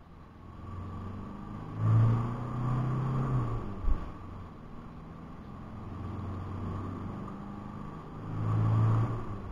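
Isuzu D-Max V-Cross 3.0-litre four-cylinder turbo diesel pulling under hard acceleration, heard from inside the cab. The engine note swells loudly, gives a sharp knock about four seconds in and falls back, then swells again near the end.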